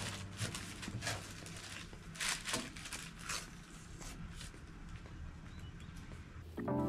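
Scattered soft knocks and rustles at irregular intervals, with no steady rhythm; music comes back in just before the end.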